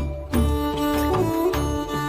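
Background music: held melodic tones over a steady low beat, about two beats a second.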